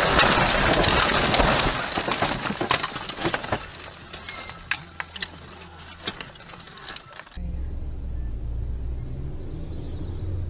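A car running off the road into bushes and trees: a loud crunching crash as it ploughs through the brush, then branches scraping and cracking against the body and windshield with scattered knocks that die away over a few seconds. After an abrupt change about seven seconds in, a steady low hum of a car driving.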